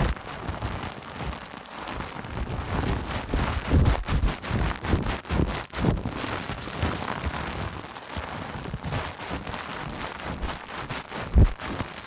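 Close-up hair-washing sounds: wet scrubbing and rustling of hair against the microphone, with frequent soft bumps and one loud thump near the end.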